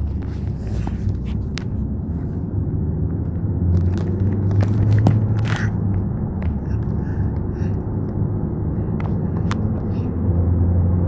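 Car driving, heard from inside the cabin: a steady low road-and-engine rumble with scattered light clicks.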